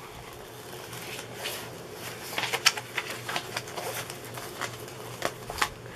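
The protective paper cover and stiff canvas of a diamond-painting kit rustling and crackling as they are handled and unrolled, with many sharp crinkles from about a second and a half in.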